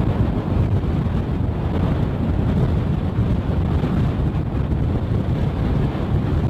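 Steady, loud wind noise buffeting the microphone, over the road noise of a moving vehicle.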